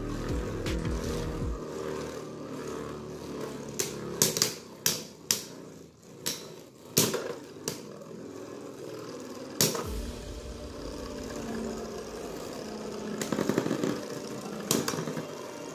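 Two Beyblade Burst tops, Brave Valkyrie Evolution 2A and Samurai Pegasis W105R2F, spinning in a plastic stadium with a steady whir and repeated sharp plastic-and-metal clacks as they collide.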